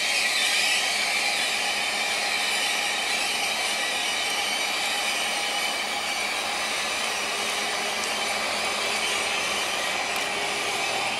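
Steady hissing noise of a Taiwan Railway EMU3000 train rolling slowly into the station.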